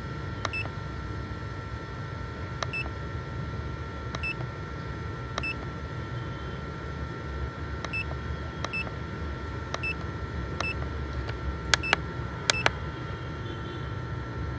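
Short electronic beeps repeating at uneven intervals, about a dozen, the loudest few close together near the end, over a steady low hum.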